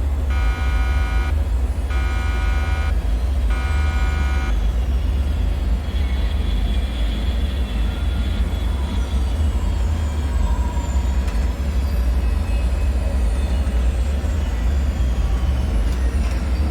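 An alarm buzzer beeping in even pulses about once a second, which stop about four and a half seconds in, over a constant deep rumble. After the beeping stops, faint thin whining tones slide slowly downward in pitch.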